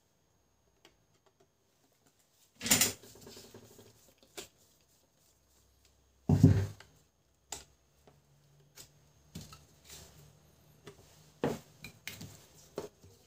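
Plastic printer parts being handled: two solid knocks, then a run of lighter clicks and taps.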